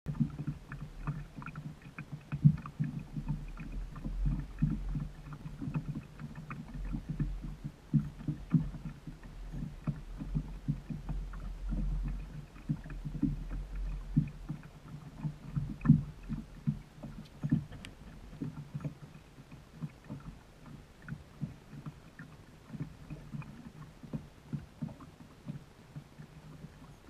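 Small waves slapping irregularly against the hull of a drifting Gheenoe skiff, with a low wind rumble on the microphone through roughly the first half. The slaps thin out toward the end.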